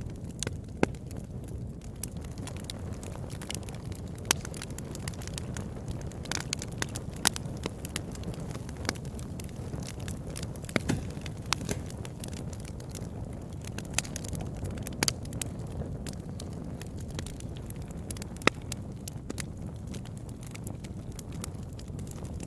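Campfire burning with a steady low rumble of flames and irregular sharp crackles and pops from the burning wood.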